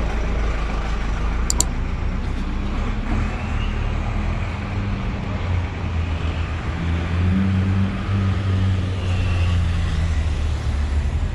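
City street traffic: a steady low rumble of passing buses, cars and motorcycles, with a vehicle engine's hum growing stronger about halfway through and easing near the end.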